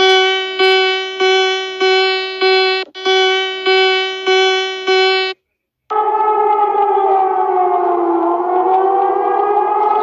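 Electronic emergency alert tones: a buzzy alarm tone beeps about nine times, roughly one and a half beeps a second. After a brief break, a continuous siren-like tone slowly wavers up and down in pitch.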